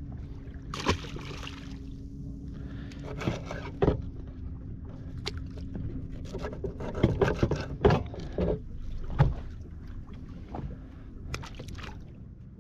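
A fillet knife cutting bait fish on a plastic cutting board, with scattered sharp knocks and scrapes of knife and hands on the board, over a steady low hum.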